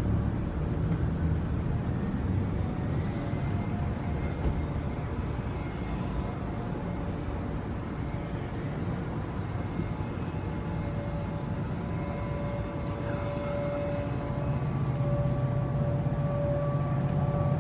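Steady low outdoor rumble of background noise, with a faint steady tone above it that grows stronger in the last few seconds.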